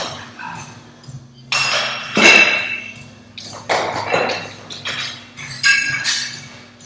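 Metal barbell weight plates and collars clanking against each other and the bar, a series of sharp metallic clinks with a short ring after each, about one or two a second, over a steady low hum.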